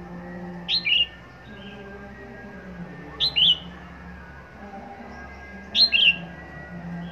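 Red-whiskered bulbul singing three short, loud warbled phrases, about two and a half seconds apart.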